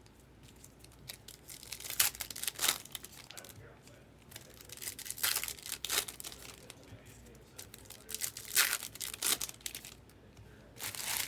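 Trading-card pack wrappers being torn open and crinkled, with several short sharp rips spread through amid steady rustling of wrapper and cards.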